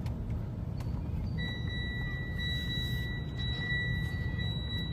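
Storm wind buffeting the microphone as a steady low rumble, with a steady high-pitched electronic tone coming in about a second and a half in and holding.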